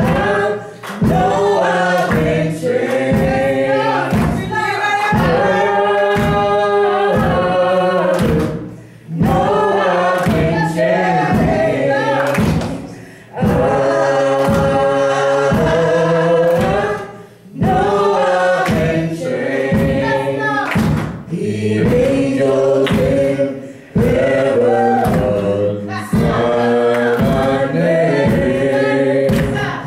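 A woman singing a gospel song into a microphone in phrases of a few seconds with short breaks between them, over accompaniment with a steady beat.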